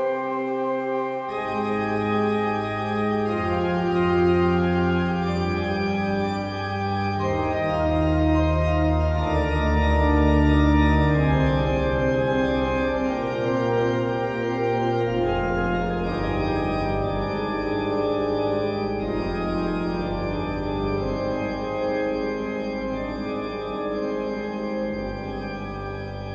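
Background music of slow, held keyboard chords over a low bass line that comes in about a second in, fading slightly near the end.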